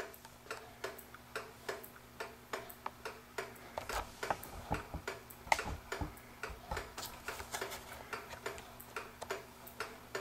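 Vintage pendulum kitchen clock's brass movement ticking, about three ticks a second, with an uneven, limping tick-tock rather than a smooth one: the clock is out of beat, and its crutch rod needs bending to centre it. A few duller knocks come about halfway through.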